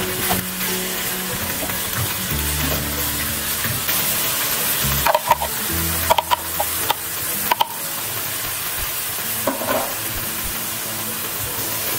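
Food sizzling in a hot pan while being stirred. A utensil scrapes and clinks against the pan several times around the middle, and once more near the end.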